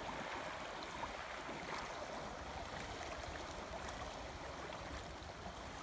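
Creek water running steadily, a continuous rushing of the current with no breaks.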